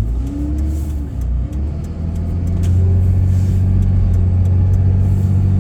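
A vehicle engine running with a steady low drone that gets louder about three seconds in, with a few light clicks over it.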